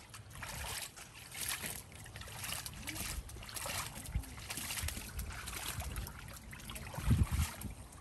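A chow chow splashing about in a shallow plastic paddling pool, its paws sloshing the water in repeated short splashes. A few low bumps come about seven seconds in.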